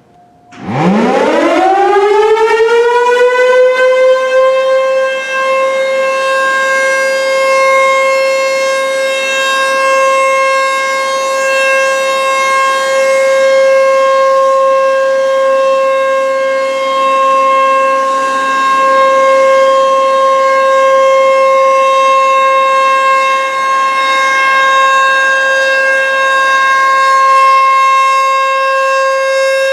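ASC T-135 AC/DC outdoor warning siren winding up from silence to full pitch within about a second, then sounding one loud, steady tone that swells gently every few seconds: a steady alert signal during a siren test.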